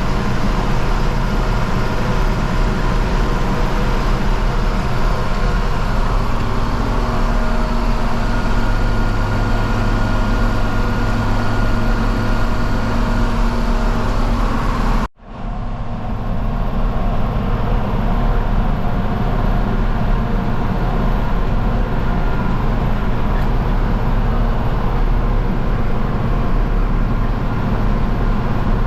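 John Deere 4230 tractor's diesel engine running steadily under load while pulling a John Deere 467 round baler baling hay. The sound drops out abruptly for a moment about halfway through, then comes back the same.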